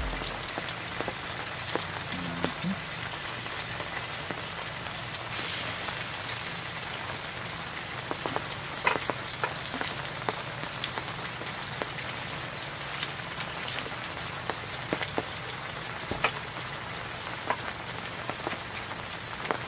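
Steady rain pattering, with scattered sharper ticks of single drops.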